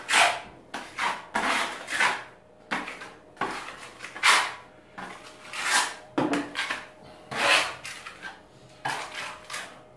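Steel putty knife spreading and smoothing wall putty over patches of plaster: a dozen or so scraping strokes at an uneven pace, about one a second.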